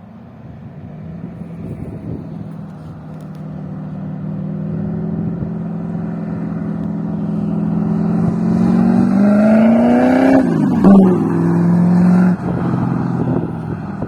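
1966 Ford Mustang's 331-cubic-inch stroker V8 exhaust, pulling under moderate acceleration because the engine is still being broken in. It grows steadily louder as it approaches, with its note climbing, then the pitch drops sharply about ten seconds in as it passes.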